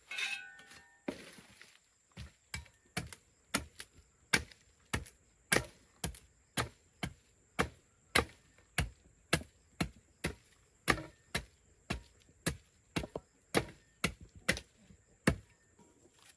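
A steady series of sharp strikes on wood, about two a second, starting about a second in and stopping shortly before the end.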